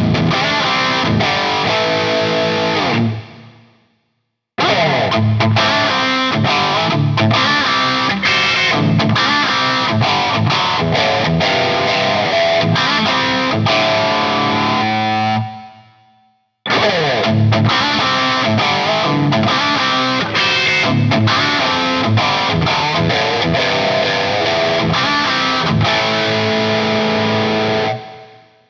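Soloking MS-1 electric guitar with humbucking pickups played with heavy distortion, in three separate passages: each fades out to silence, and the next starts abruptly, about 4 and 16 seconds in.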